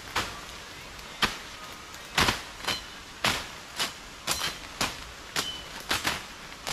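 Machete strokes chopping through brush and saplings: about a dozen sharp, irregular cuts, a few of them followed by a brief high ring.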